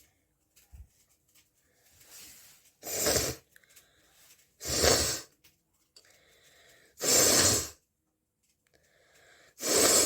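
A person sneezing four times, each loud sneeze about half a second long and following a faint in-breath.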